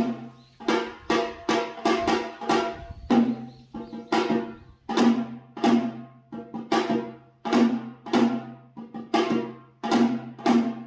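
Instrumental background music: plucked or struck notes, each fading quickly, about two a second.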